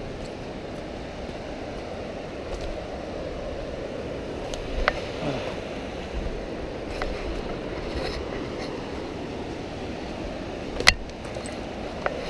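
Steady rushing of Colorado River rapids, with a few sharp knocks and scrapes of the hiker moving over rock, the loudest about eleven seconds in.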